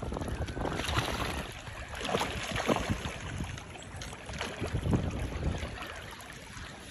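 River water rippling and sloshing close to the microphone, with wind buffeting the microphone in uneven gusts.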